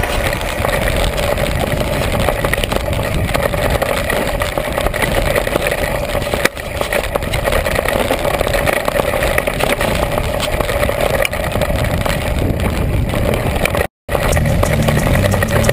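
Steady dense rush and rattle of a mountain bike descending a rocky trail, heard through a GoPro riding with the bike. The sound cuts out for an instant near the end.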